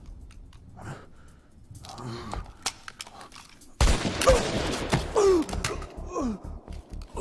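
Action-scene sound effects: a few faint clicks, then a sudden loud crash about halfway through, followed by a man's pained groans and gasps, each sliding down in pitch.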